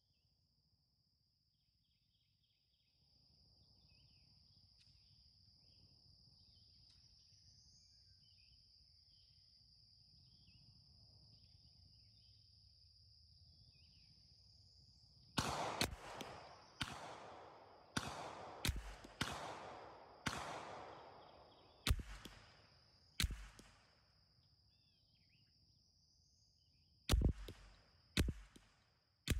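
String of .22 LR shots from a semi-automatic Ruger 10/22 target rifle, rapid fire. About ten sharp cracks start about halfway through, one to two seconds apart, each with a short echo, and there is a pause of about four seconds before the last few. A steady high-pitched hum and faint chirps run underneath.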